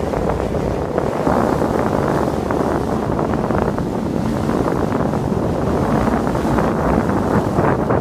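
Steady wind noise on the microphone aboard a moving boat, over the noise of the boat running through the water.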